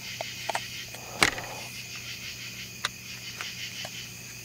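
A few sharp plastic clicks and light handling knocks as a butane cartridge is fitted into a ThermaCELL mosquito repeller, the loudest about a second in, over a steady chorus of insects.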